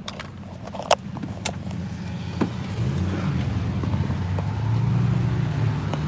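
A few sharp clicks and knocks in the first couple of seconds, then a steady low vehicle rumble that grows louder from about halfway in.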